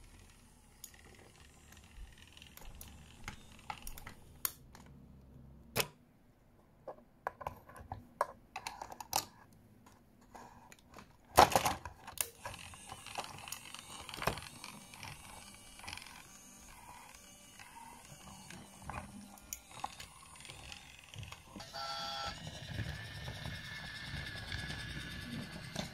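Wooden Brio toy trains and track pieces clicking and knocking as they are handled and pushed along, with one loud clatter about halfway through. Near the end a battery-powered Brio train gives a short electronic chime and its motor runs with a steady whir.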